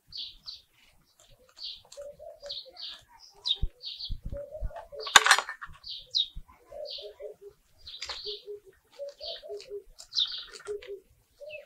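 Garden birds calling: a dove cooing in repeated groups of short low notes while a small bird chirps over and over. A single sharp clatter comes about five seconds in, with faint knocks from soil being worked by hand.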